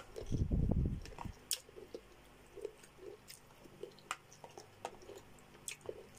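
Close-miked chewing and mouth smacks of soft boiled cabbage and chicken soup, a scatter of small wet clicks. A louder burst of low, muffled sound comes in the first second.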